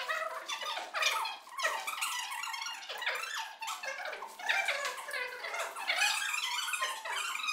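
Voices talking in quick, high-pitched syllables.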